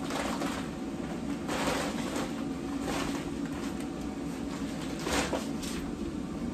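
Steady hum of the inflatable paint booth's blower fan keeping it inflated, with several bursts of rustling fabric and plastic sheeting as a plastic-wrapped mesh door panel is pulled down and shaken loose.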